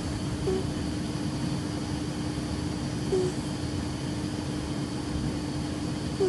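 Sleeping cat snoring: a steady low snore with a short squeak on the breath three times, about every three seconds.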